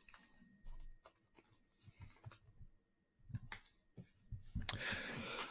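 Trading cards being handled, with light clicks and taps, then a longer rustle about four seconds in.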